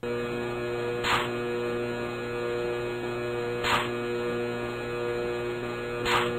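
Sound effects of an action-potential animation: a steady electronic hum that switches on with the stimulus current, and three short crackles of static about two and a half seconds apart, one for each action potential fired.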